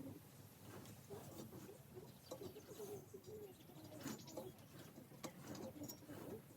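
Faint bird calls: short wavering notes repeating on and off, with a few light clicks.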